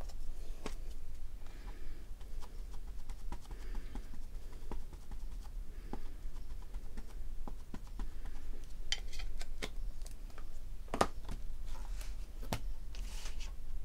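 Light clicks and taps of stamping tools being handled: an ink pad dabbed onto a clear acrylic stamp and set down on the table, with a few soft rustles and two sharper clicks near the end. A steady low hum runs underneath.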